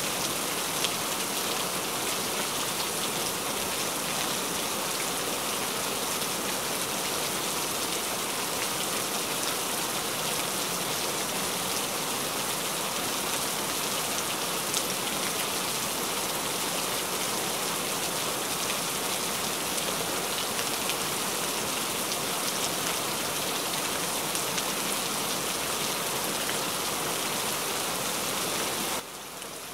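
Steady rain: an even hiss with faint pattering of drops. The level drops suddenly near the end, and the quieter rain goes on.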